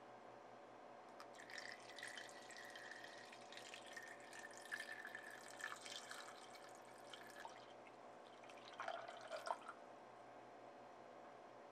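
Water poured in a stream into a bowl over dried noni fruit, splashing and trickling for about six seconds, then a shorter pour about nine seconds in.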